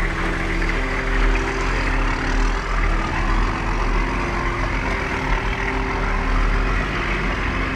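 Nissan Patrol 4x4 driving slowly up a loose-rock off-road track: a steady low engine rumble with a continuous hiss of tyre and ground noise.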